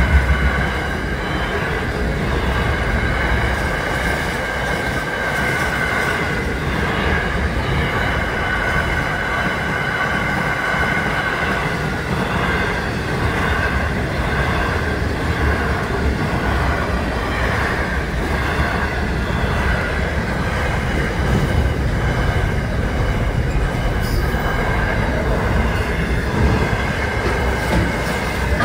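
Freight train of container wagons rolling past at speed: a steady rumble of wheels on rail with a high, steady wheel squeal over it.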